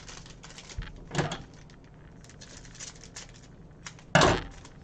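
2021 Panini Mosaic football trading cards being handled and flipped through one by one: a run of light rustles and small clicks, with a louder rustle about four seconds in.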